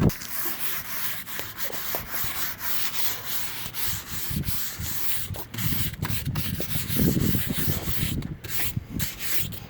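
Hand rubbing down the high spots on a freshly cured coat of fiberglass filler on a sailboat rudder: a rasping, uneven run of strokes, knocking the surface flat before the next coat.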